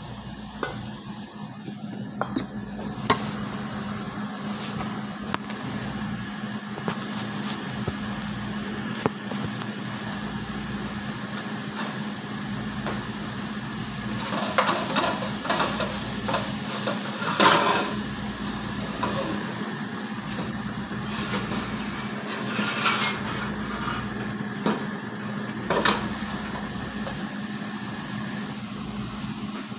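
A spoon stirring and scraping diced chicken in a frying pan, with knocks of pots and utensils, over a steady low hum.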